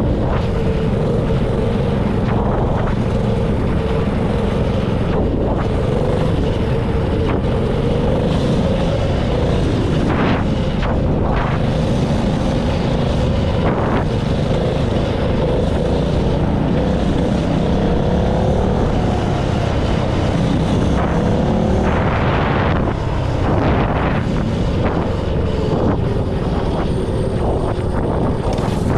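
Honda GX160 single-cylinder four-stroke engine on a mini bike running under way, its pitch holding fairly steady and wavering a little at times, with wind buffeting the microphone.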